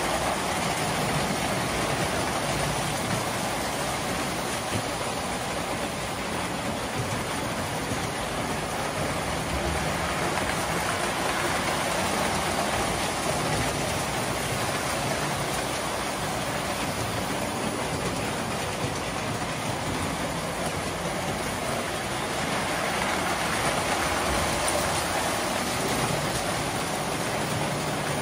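Several tinplate toy trains running at once around a layout: a steady rattling rumble of metal wheels on the track.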